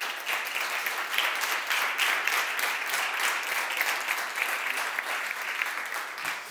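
Small audience applauding, many hands clapping steadily and dying away near the end.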